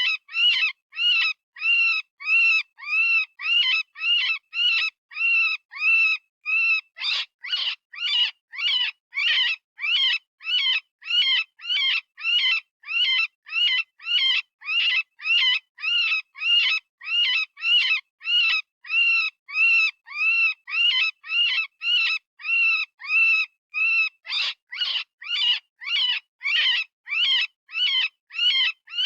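Software-generated rabbit distress call, the kind used for predator hunting: short, high, wavering squeals repeating about twice a second with brief silences between. The cries turn harsher and raspier about 7 seconds in and again about 24 seconds in.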